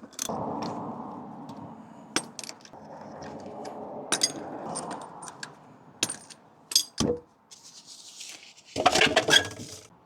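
Small hard objects handled: scattered metallic clicks and clinks over a hiss, a dull knock about seven seconds in, and a burst of clattering near the end.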